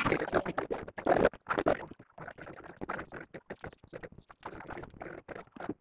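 Close-up eating sounds: wet chewing and lip-smacking as rice and fish curry are eaten by hand, an irregular run of quick smacks and clicks, loudest in the first second or so.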